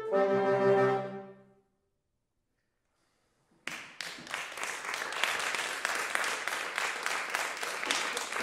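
A reed quintet of oboe, clarinet, saxophone, bass clarinet and bassoon holds its final chord, which dies away about a second and a half in. After a silent gap of about two seconds, audience applause starts suddenly and continues.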